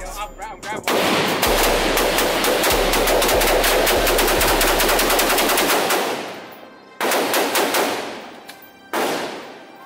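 Rapid gunfire at a shooting range: a fast, unbroken string of shots for about five seconds, then two more shots or short bursts, each ringing out as it fades.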